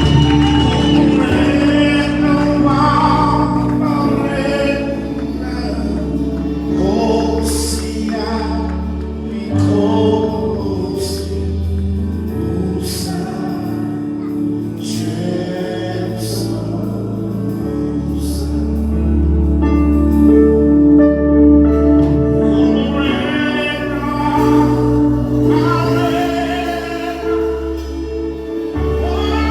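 Gospel worship music: singing over a band with a steady bass and cymbals.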